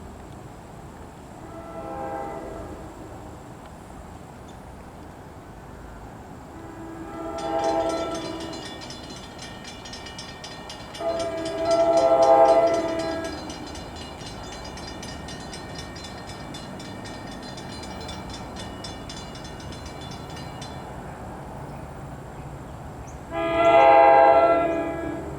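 Train air horn blowing four times, faint at first and then louder as the train approaches; the last blast near the end is the loudest. Through the middle a bell rings rapidly and evenly.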